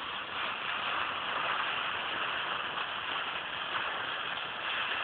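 Steady hiss with no bang: the homemade golf ball cannon's last charge smokes but does not fire, a dud.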